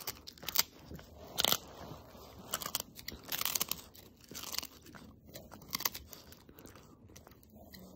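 French bulldog chewing a crunchy fish-skin chew, with irregular sharp crunches as its teeth crack the dried skin, coming thickest in the middle.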